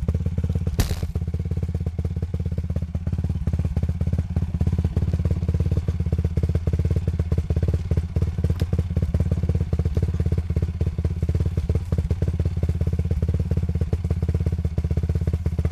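ATV engine idling steadily with an even, fast pulse, with one sharp click about a second in and a fainter tick past the middle.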